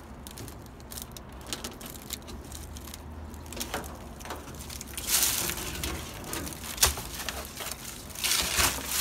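Old rubber rear-window gasket of a 1974 Chevy C10 cab being pulled out of the window opening: scattered crackling, scraping and rubbing of rubber against the metal flange, with a louder scrape about five seconds in and a sharp click near seven seconds.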